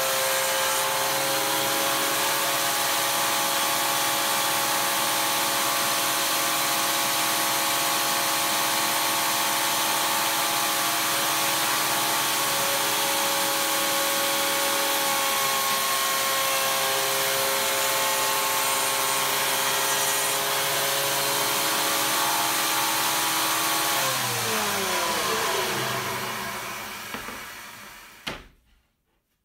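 Benchtop electric jointer running steadily at full speed while the edge of a cherry slab is fed across its cutterhead. Near the end it is switched off and its pitch falls as the motor winds down to a stop.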